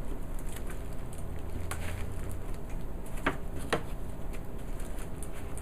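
Light clicks and rustling from a mechanical keyboard being handled, with two sharper clicks about half a second apart just past the middle, over a steady low hum.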